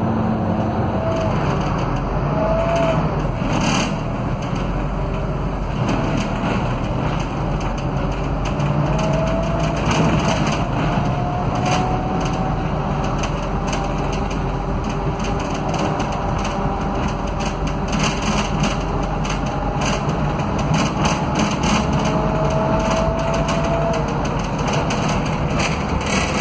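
Inside the passenger cabin of a Scania K320UA articulated bus under way: the five-cylinder Scania DC09 diesel runs with a steady low rumble while a gear whine rises in pitch several times as the bus picks up speed. The whine comes from the hub-reduction rear axle, a sound typical of Scania buses. Light interior rattles are heard throughout.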